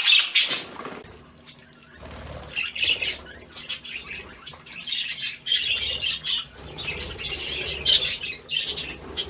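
Budgies bathing: repeated bursts of wing fluttering with short squawks and chirps.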